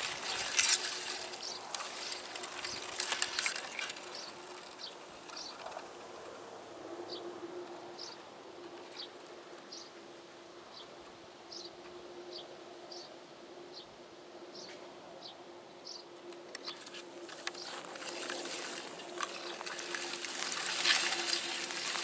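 Spring garden ambience: a small bird gives short high chirps about once a second over a steady buzzing hum. Grass rustles against the microphone at the start and again near the end as the camera is moved low through it.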